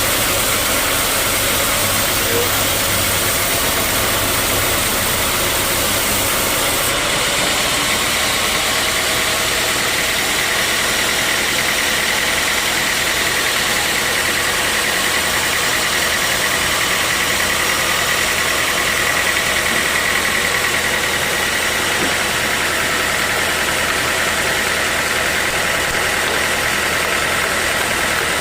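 Sawmill machinery running steadily with a loud, even noise. A faint high whine comes in about ten seconds in and holds.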